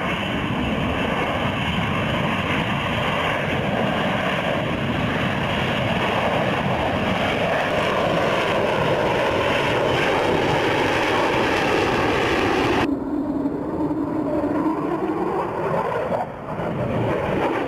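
Lockheed Martin F-35B's single jet engine running loud through its flying display. Its tone slides slowly down and then back up near the end.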